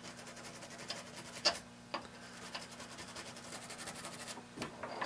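Toothbrush bristles scrubbing rapidly over the soldered pins of a Naze32 flight controller board, a faint dry scratching, wet with rubbing alcohol to clear solder flux from between the pins.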